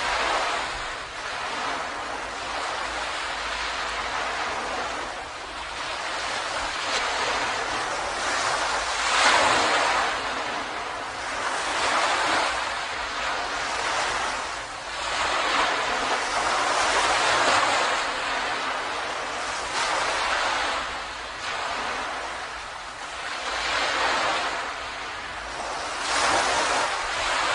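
Ocean surf breaking on a beach. The wash of the waves swells and eases every few seconds.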